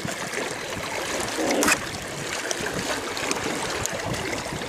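Water sloshing and splashing along the side of an inflatable boat as an oar moves in the water, with one louder splash about a second and a half in.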